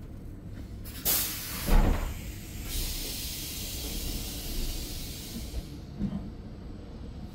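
Compressed air hissing on a double-deck S-Bahn commuter train: a sudden hiss about a second in, with a heavy thump just after, then a steadier hiss for about three seconds that stops, over the low rumble of the train.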